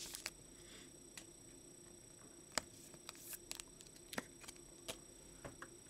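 Faint, scattered light clicks and taps of a trading card and a clear plastic top loader being handled and set down, over quiet room hum.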